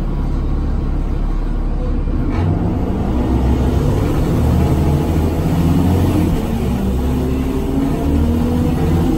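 Cummins ISL diesel engine of a New Flyer D40LF transit bus, heard from inside the passenger cabin, running under load as the bus pulls away and accelerates. The engine note strengthens a couple of seconds in and rises in pitch near the end.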